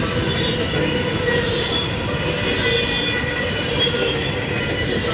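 Double-stack intermodal freight train rolling past, a steady rumble of wheels on rail with thin, wavering high squeals from the wheels.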